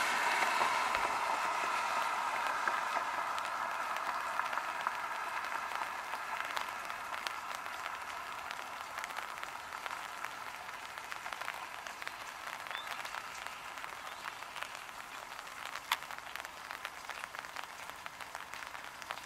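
Light rain pattering in many small ticks, with a passing car's tyre noise on the wet road fading away over the first several seconds.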